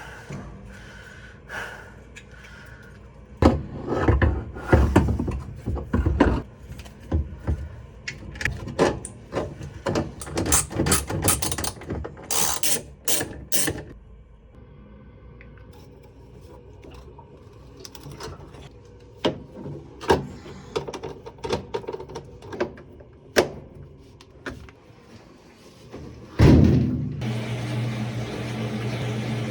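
Irregular knocks, clanks and thunks of parts and tools being handled while a Whirlpool washing machine is repaired. About 26 seconds in there is a heavy thump, then the machine's motor starts and runs with a steady hum.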